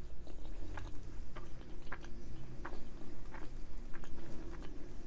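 A person chewing a mouthful of paneer tikka masala with rice: soft mouth clicks at irregular intervals, about two a second, over a low steady hum.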